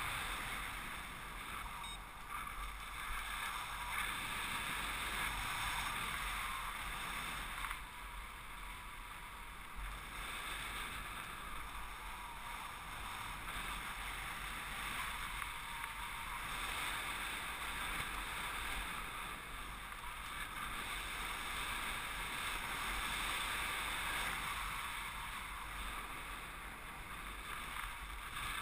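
Wind rushing over the microphone of a paraglider pilot's camera in flight, a steady airflow noise that swells and eases every few seconds.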